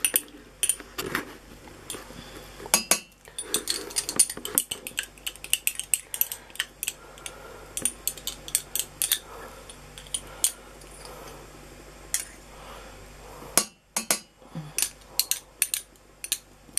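Spatula stirring fudge mixture in a saucepan on the hob, knocking and scraping against the pan in many irregular clicks and clinks.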